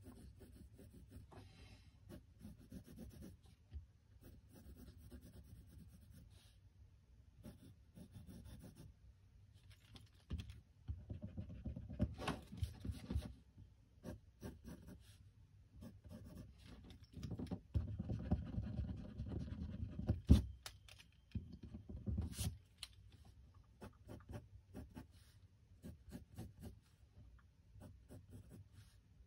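Pencil drawing on a spiral-bound sketchpad: intermittent scratchy strokes, growing louder and busier in two stretches in the middle, with one sharp knock about two-thirds of the way through.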